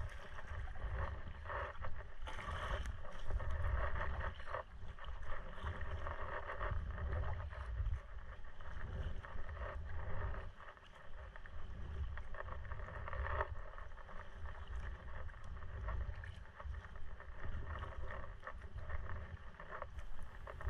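Sea kayak paddling: the paddle blade dips and pulls through calm sea water, splashing and dripping, while water washes along the hull of a Prijon Seayak 500 LV. A low wind rumble sits on the microphone underneath.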